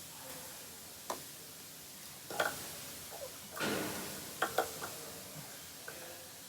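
Scattered light clicks and knocks from hands fitting cold air intake parts in an engine bay, about seven in all, with a short rustle about halfway through, over a faint steady hiss.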